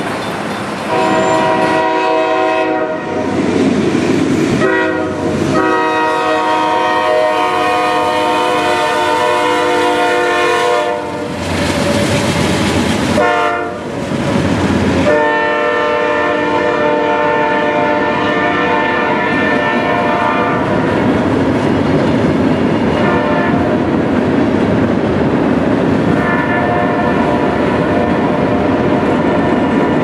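Diesel freight locomotive's air horn sounding a chord in a series of long and short blasts, over the steady rumble and clatter of freight cars rolling on the rails. The blasts are strongest in the first two-thirds and come back fainter twice near the end.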